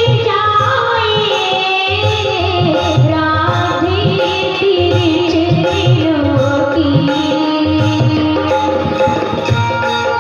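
Hindi devotional bhajan music: a tabla beat under a long, sliding melody line.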